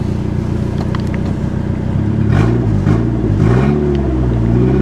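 Small four-cylinder engine of a 1990s Mercury idling, then revved in a few rising and falling blips from about halfway. It runs rough, with a broken vacuum line and a lot of smoke under the hood.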